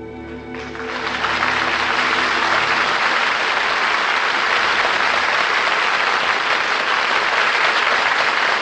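Audience applauding, steady and dense, rising in about half a second in as the orchestra's last held chord dies away.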